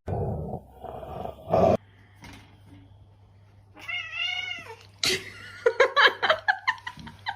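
A dog growls loudly for the first couple of seconds. Then a domestic cat gives one drawn-out angry yowl about four seconds in, followed by a quick run of short, sharp cries.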